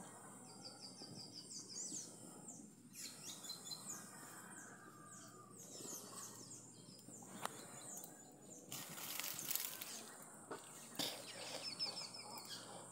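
Faint outdoor ambience with small birds chirping and calling, in quick repeated runs of short high notes. About two-thirds of the way through there is a brief rustling hiss, and a couple of sharp clicks.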